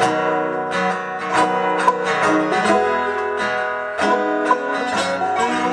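Live acoustic folk music from a trio: plucked and strummed acoustic guitar leads, with sustained notes ringing under it, in the instrumental close of a song.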